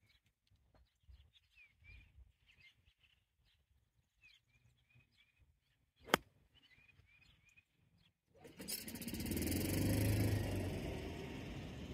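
A 60° wedge striking a golf ball once, a sharp click about six seconds in, with birds chirping around it. About two seconds later a loud, steady rush of noise sets in and lasts to the end.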